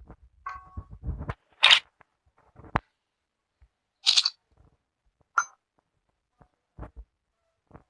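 AK-74M rifle parts being handled during field stripping or reassembly: a short rattling slide of parts about half a second in, then a series of sharp clicks and clacks roughly a second apart.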